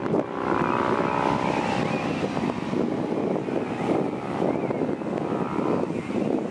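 Wind buffeting the microphone over ocean surf. For the first couple of seconds a steady motor drone sounds over it, and high wavering seabird calls come through.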